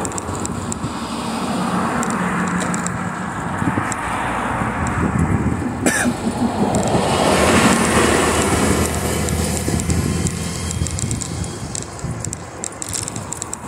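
Continuous street noise heard while riding a bicycle: wind and road rumble with passing traffic. It swells louder for a few seconds in the middle, and there is one sharp click about six seconds in.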